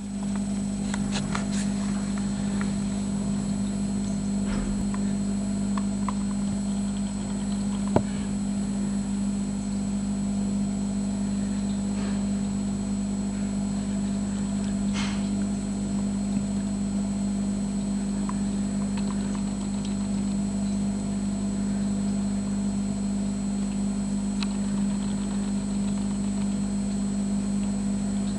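Steady mechanical hum of an aquarium pump running, with a few faint clicks and one sharp click about eight seconds in.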